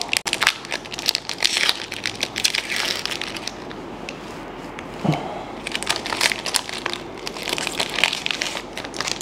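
Foil wrapper of a Pokémon trading card booster pack crinkling as it is torn open and the cards are slid out. Two spells of crackly crinkling, with a short lull in between about halfway through.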